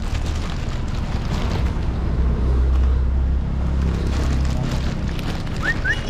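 Car rolling slowly with its window open: a steady low rumble of engine and road noise, with wind buffeting the microphone.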